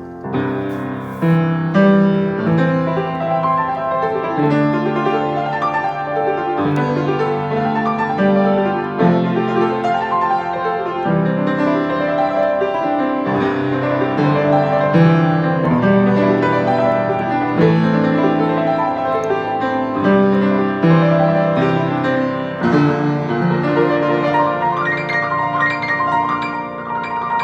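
Piano playing, its notes and chords changing about once a second.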